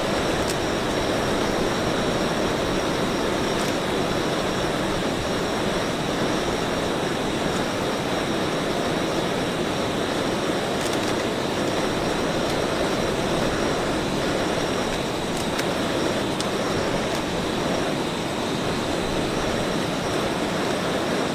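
Heavy rain falling as a steady, dense hiss, with a few faint sharper drop ticks here and there.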